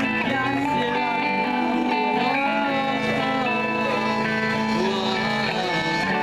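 Live band playing, led by guitar with held notes and some pitch bends.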